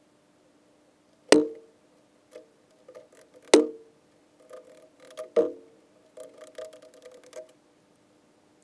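Three sharp metallic clacks about two seconds apart, each with a brief ring, and lighter clicks and rattles between them, from a caulking gun being worked over a corrugated metal panel. A faint steady hum runs underneath.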